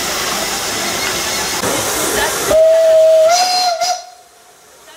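Steam locomotive letting off a loud, steady hiss of steam, which cuts off abruptly about two and a half seconds in. A single steam whistle blast follows for about a second and a half, its pitch stepping up slightly partway through.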